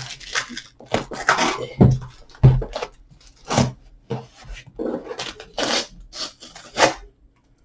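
Cardboard shipping box being pried and torn open by hand: irregular rips, scrapes and a few thumps as it resists opening.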